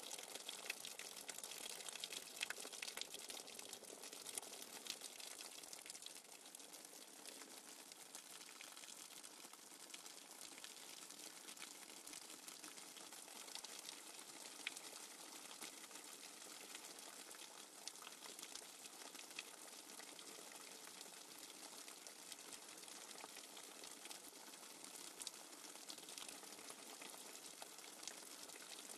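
Faint, steady rush of water with a fine crackle, from a nature-sounds background track.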